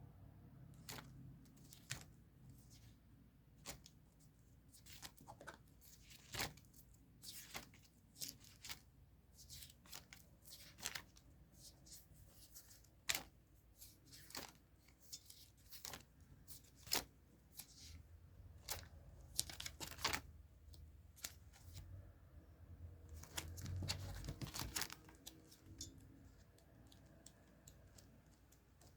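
Paper crafting at close range: paper and sticker sheets being torn, peeled and rustled, among many small clicks and taps as stationery is picked up and set down. There is a longer spell of rustling a little past the middle.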